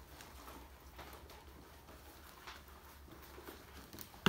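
Bullmastiff puppies' paws pattering and scrabbling on a raised fabric pet cot, with scattered light taps and scuffs. One sharp knock comes right at the end.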